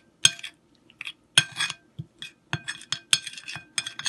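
A spoon clinking and scraping against a ceramic bowl while stirring a thick yogurt and spice marinade, in repeated irregular strokes, a few a second.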